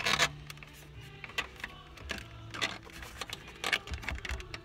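Sharp plastic clicks and knocks, about one a second, as a factory car radio is pulled out of the dash on Ford radio removal keys, over a steady low hum.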